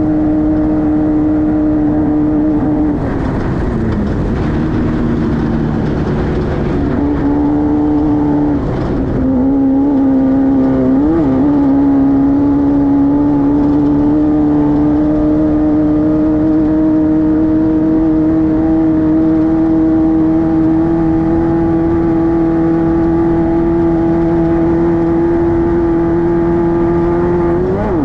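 Class 5-1600 race car's air-cooled VW 1600 flat-four running hard at high revs. The pitch drops and wavers between about three and eleven seconds in, then climbs slowly and steadily in one long pull, and falls sharply near the end.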